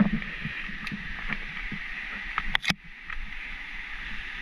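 Footsteps on a dirt forest trail, soft irregular thuds over a steady high hiss, with one sharp click a little past halfway.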